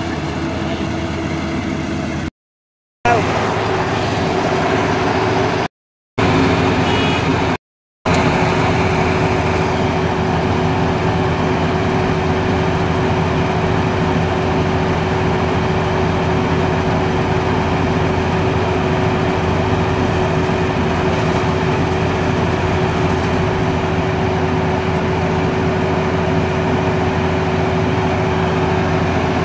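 Tracked rice combine harvester running steadily, its engine and threshing machinery under load. The sound drops out briefly three times in the first eight seconds at edit cuts; from about eight seconds in, a steady whine runs under the machine noise as grain is unloaded through the spout into a tractor trolley.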